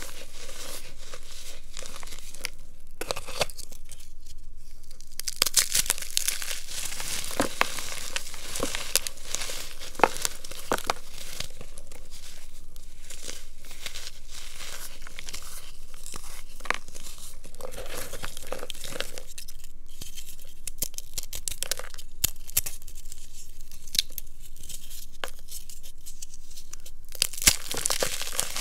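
Reformed blocks of baking soda, cornstarch and gym chalk being crushed and squeezed by hand in a bowl: dry crunching and crumbling made of many small sharp crackles, with a few short quieter pauses.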